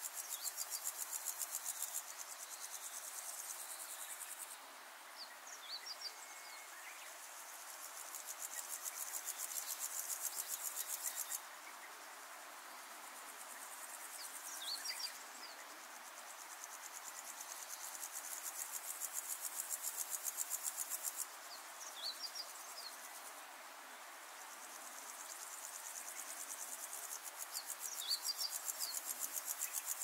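Insects trilling in fast pulsed stretches of several seconds that stop and start again, with a few short high bird chirps in the gaps.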